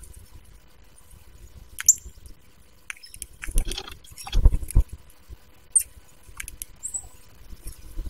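Hairy woodpecker pecking and scrabbling at a suet log: bursts of knocking and scraping, loudest in the middle. A few sharp, very high bird chips are heard, one short falling note at a time.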